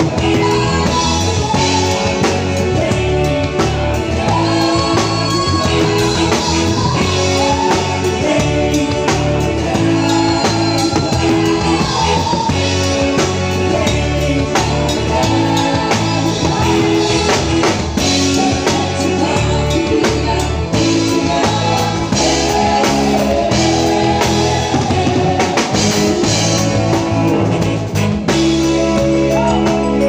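Live band music: a drum kit, guitar and a singing voice, loud and continuous.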